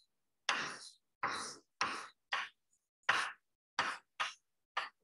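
Chalk writing on a chalkboard: a run of about eight short, separate strokes of chalk scraping over the board.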